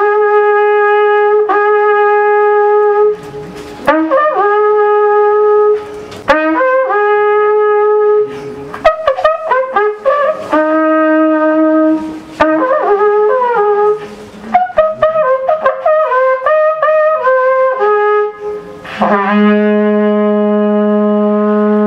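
Long wooden Polish shepherd's horn (róg pasterski) played solo: held notes and quick, ornamented runs, with short breaks between phrases, ending on a long low note.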